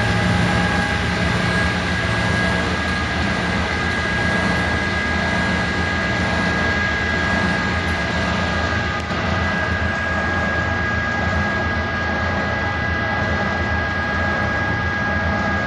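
Milnor industrial washer-extractor spinning its drum at full speed in the extract cycle, driven by a variable frequency drive: a steady high whine over a low rumble.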